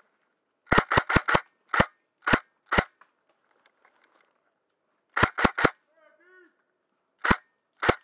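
Airsoft rifle firing shot after shot at close range: a quick string of four less than a second in, three more about half a second apart, then three quick shots a little after five seconds and a single one near the end.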